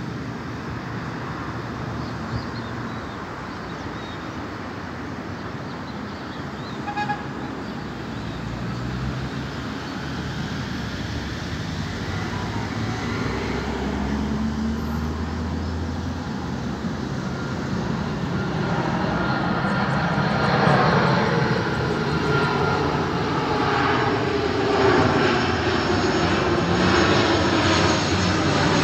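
Boeing 737-800 airliner on final approach, its CFM56-7B turbofan engines a distant rumble at first that grows steadily louder as it nears, loudest near the end.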